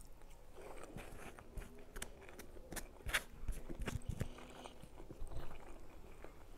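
A person chewing a mouthful of fried rice close to the microphone, with irregular soft wet clicks and smacks of the mouth.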